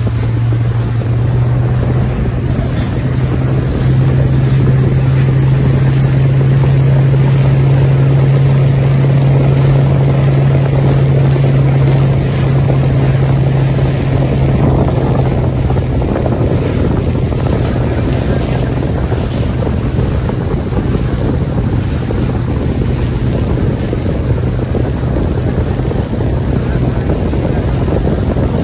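Motorboat engine running steadily at speed, a strong low drone, with wind buffeting the microphone and water rushing along the hull. The drone swells a little about four seconds in and eases slightly after about twelve seconds.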